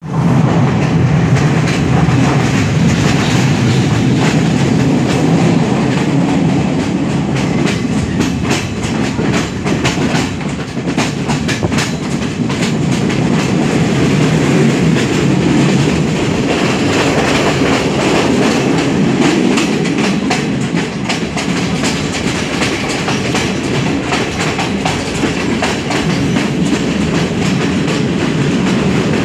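On board a Sri Lanka Railways class S12 diesel multiple unit running along the line: steady loud running noise from engine and track, with wheels clicking over rail joints, the clicks coming thickest about a third of the way in.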